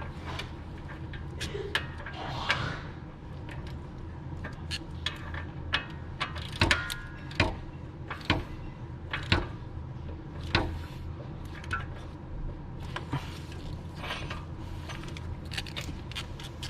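Irregular metallic clicks and clinks of a wrench and oxygen-sensor socket as the new oxygen sensor is tightened into the exhaust, with a steady low hum underneath.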